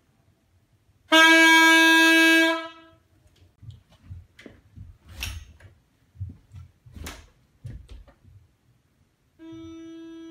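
A horn held on one loud, bright note for about a second and a half in an untreated room, followed by a few scattered knocks and shuffles. Near the end the same note starts again, much quieter and muffled, played inside a closed foam-lined isolation booth with 4-inch foam walls.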